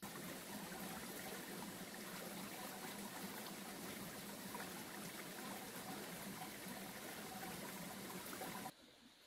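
Stream flowing, a steady even rush of water that cuts off suddenly near the end.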